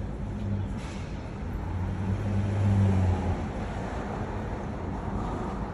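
Road traffic noise: a steady low engine rumble with a hiss, swelling a little in the middle.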